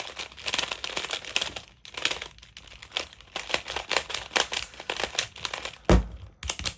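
Plastic clicking and rattling of a 3x3 Rubik's Cube sliding puzzle being turned and its tiles slid by hand, rapid irregular clicks with a louder knock about six seconds in.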